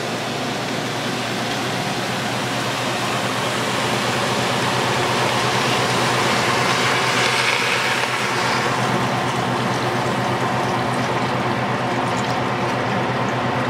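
Chicken broth poured in a steady stream from a pot into a stainless steel stockpot of sautéed vegetables and lamb shank, splashing continuously and a little louder around the middle of the pour.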